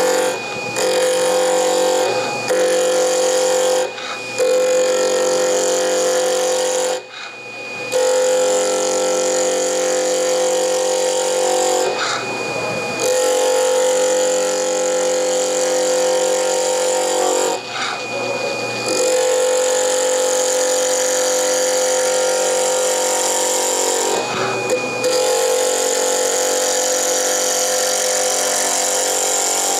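Wood lathe spinning at about 2800 RPM with a turning tool cutting a stabilized curly mango pen blank, a very hard blank: a steady pitched hum over the hiss of the cut. The sound breaks off briefly several times, longest about seven seconds in.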